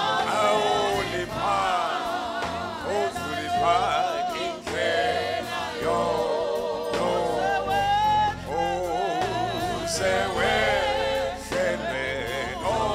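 Gospel worship song sung by a group of singers in unison and harmony over live band accompaniment.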